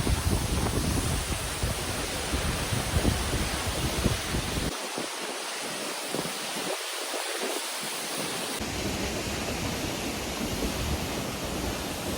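Steady rush of a waterfall's falling water, with wind buffeting the microphone in the first few seconds.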